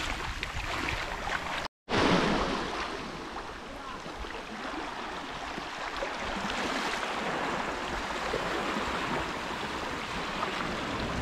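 Sea waves washing and lapping in shallow water along a beach. The sound cuts out for a moment about two seconds in.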